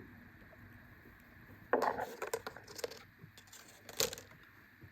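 A cluster of small clicks and rattles about two seconds in, then one sharp click about four seconds in: a plastic action figure and its accessories being handled and set down.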